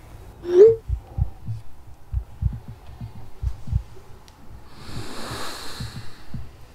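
Thick wool scarf rustling as it is shaken out and unfolded, with a hiss of fabric strongest about five seconds in. About half a second in, a short rising tone is the loudest sound, and soft low thumps recur throughout.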